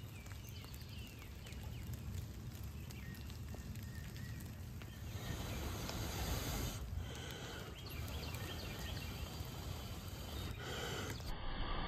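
Outdoor ambience in light rain: a steady hiss with a low rumble, faint chirps at first, and the hiss growing louder about five seconds in.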